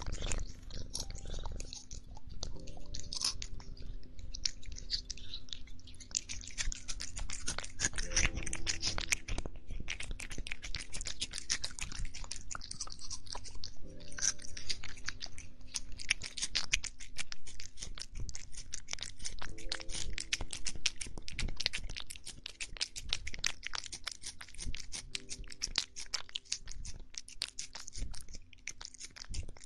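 A cat chewing and crunching its food up close, a dense, continuous run of small crunches.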